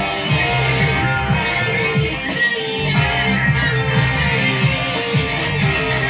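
Live band playing, electric guitar to the fore over a steady beat.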